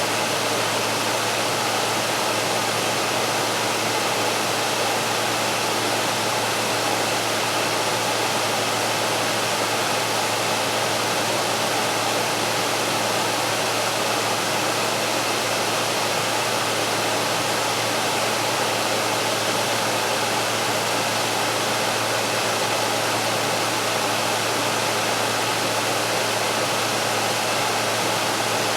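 Frigidaire air conditioner's fan running steadily at its high 'turbo' speed: a constant rush of air over a low, even hum. The compressor has not yet kicked on.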